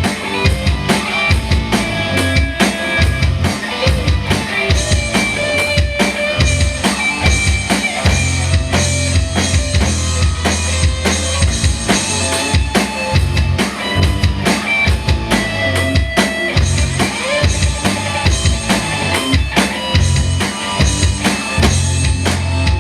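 Rock band playing an instrumental passage without vocals: a drum kit with bass drum and snare keeps a steady beat under held melody notes.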